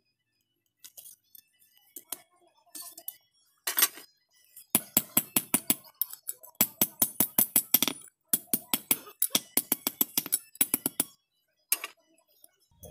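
Hand hammer striking a red-hot steel bark-knife blank on a steel anvil block, bending its tip over into a hook. A few single blows come first, then quick runs of about five or six strikes a second with short pauses between them.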